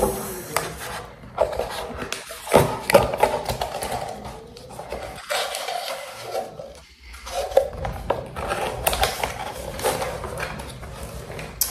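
Packaging being handled and opened: irregular rustling with many small clicks and knocks.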